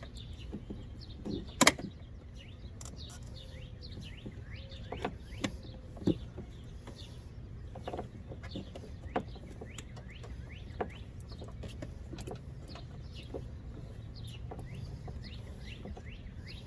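Birds chirping over and over in short, falling notes, with scattered sharp clicks and knocks of hand work on the car's tail light; the loudest click comes about two seconds in.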